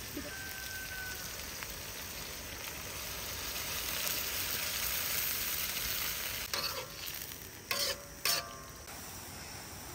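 Food frying in a pan, a steady sizzle, with two sharp knocks near the end.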